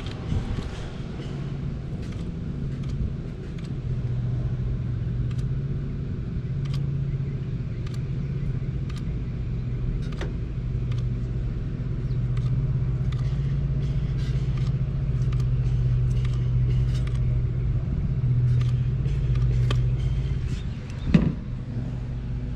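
Steady low machine hum with a pitched drone, scattered light clicks and handling noises, and one sharp knock about 21 seconds in.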